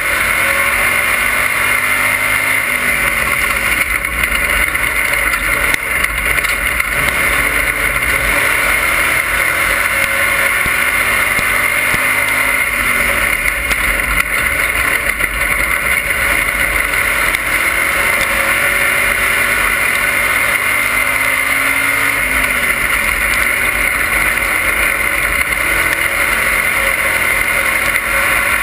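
Dirt-track race car's engine running hard under racing load, heard from inside the cockpit, loud and steady with wind and chassis noise. The engine pitch dips and climbs again about every ten seconds as the car laps the oval.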